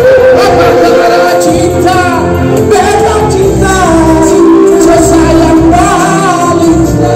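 Live pop song: a man and a woman singing a duet into microphones over amplified backing music with a steady bass line.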